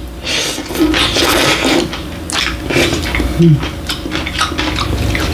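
Close-miked slurping of cold bibim noodles for about a second and a half, followed by chewing and chopsticks clicking against ceramic plates.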